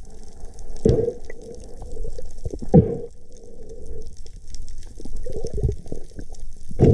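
Muffled underwater water noise, with a louder swoosh of moving water about every two seconds.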